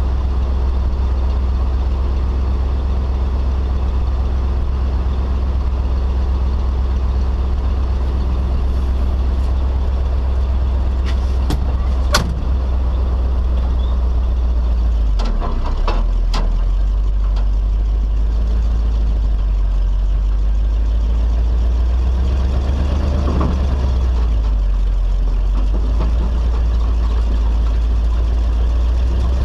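Tow truck's engine running steadily, its low note shifting a couple of times. A few sharp metallic clicks come about halfway through.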